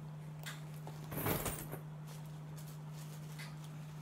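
Handling noises as a handbag is set down and clothing is picked up: a brief rustle about a second in and a few soft clicks, over a steady low hum.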